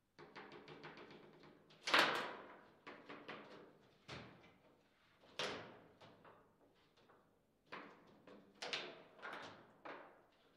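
Foosball being played: a run of sharp plastic clacks and knocks at uneven intervals as the ball is struck by the players and bangs around the table. The loudest hit comes about two seconds in.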